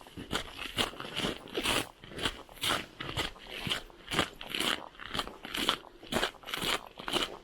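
Footsteps crunching at a steady walking pace, about two steps a second.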